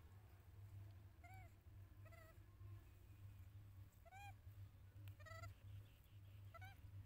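A baby macaque giving five faint, short high calls, each rising then falling in pitch, about a second apart, over a low steady hum.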